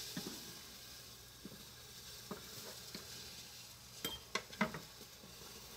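Steady faint sizzling hiss of water at a rolling boil in a toy electric oven, close to boiling over. Over it, light clicks and scrapes of a kitchen knife on a wooden cutting board and a plastic measuring spoon as chopped mushrooms are scooped, with three quick clicks about four seconds in.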